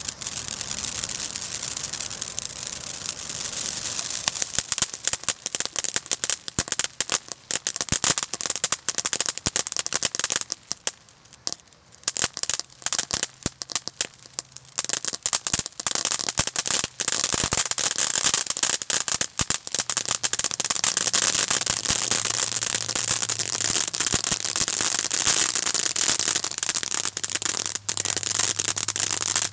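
Noisy Niagara ground fountain firework burning, spraying sparks with dense crackling over a hiss. The crackle thins to scattered pops about a third of the way in, then builds back to a thick, steady crackle.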